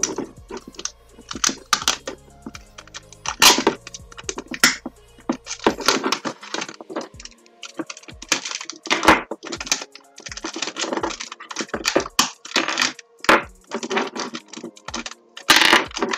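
Hands working at a workbench: a busy string of clicks and knocks and short rasping noises as wires, a plastic strip and a roll of adhesive tape are handled, with background music underneath.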